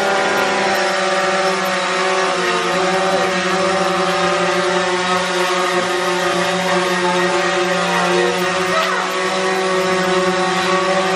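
DJI Phantom 4 Pro quadcopter's propellers buzzing steadily at a hover, one even pitch that holds unchanged.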